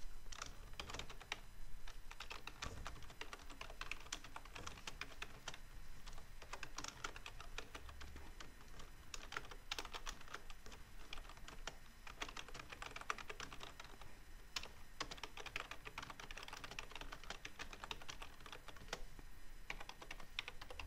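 Computer keyboard typing: rapid runs of keystrokes with short pauses between them, as a sentence is typed out.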